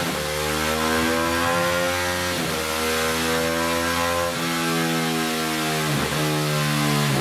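Ducati Hypermotard 821's V-twin engine running at high revs through a Zard full exhaust, rear wheel spinning on a dyno roller. The pitch holds steady, with short dips and recoveries every second or two.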